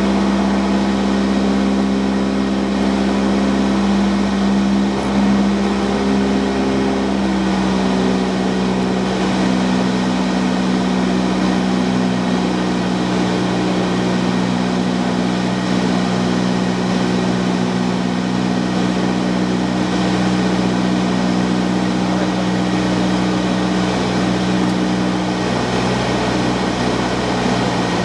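Cessna 172's piston engine and propeller drone heard from inside the cabin in flight: a loud, steady hum with a strong low tone and a rush of air noise. The engine note shifts slightly about seven seconds in.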